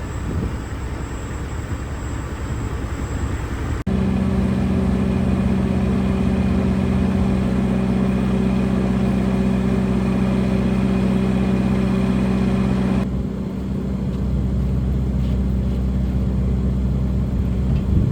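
Crane's engine running steadily under load while lowering a heavy concrete shelter, its note holding at one pitch. The sound abruptly gets louder and more tonal about four seconds in, then drops back about thirteen seconds in.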